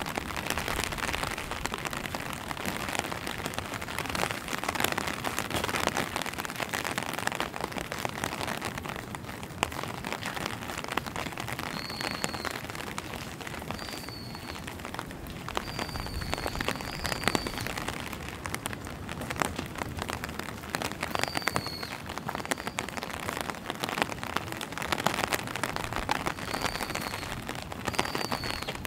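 Steady rain falling, with many close drops tapping on an umbrella overhead. In the second half a short, high chirp recurs several times.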